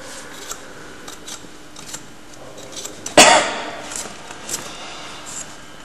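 A hoof knife scraping and clicking faintly against hoof horn as the hoof is trimmed, with one loud, sharp scrape or clatter about three seconds in.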